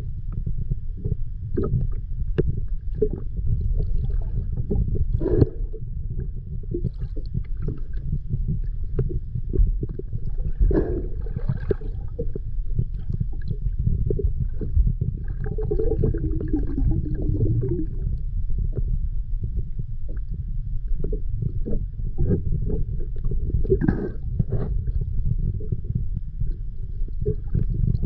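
Underwater sound picked up by a camera in its housing: a steady low rumble with small clicks, and louder gurgling bursts every five or six seconds.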